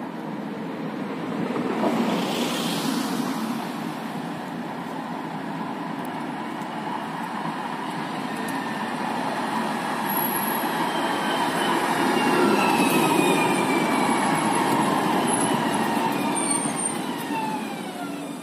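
Alstom Citadis Dualis tram-train arriving and braking, its wheels rolling on the rails under an electric motor whine that falls steadily in pitch as it slows to a stop. There is a brief swell of noise about two seconds in.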